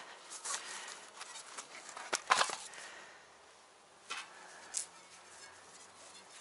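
Hands handling a bicycle inner tube and tyre: short rustles and scrapes, with a sharp click and a louder scraping rustle a little over two seconds in.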